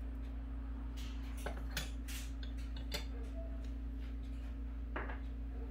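Metal spoon scraping and clinking against a glass jar and the frying pan while thick chili garlic oil is spooned into the jar: a handful of short, irregular clicks and scrapes over a steady low hum.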